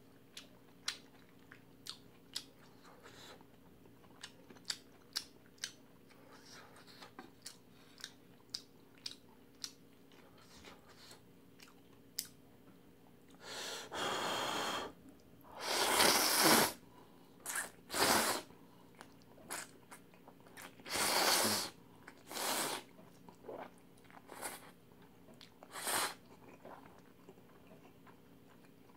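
Close-miked eating: chewing with small wet mouth clicks, then from about halfway several long, loud slurps of jjamppong noodles, with more chewing between them.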